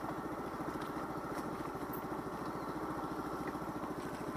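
Daelim Witty 100 small scooter's engine running steadily at a low, even speed, a rapid steady putter.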